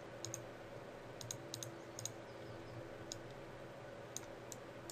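Computer mouse buttons clicking at irregular intervals, some clicks in quick pairs, as vertices are selected and moved in 3D modelling software, over a steady low hum.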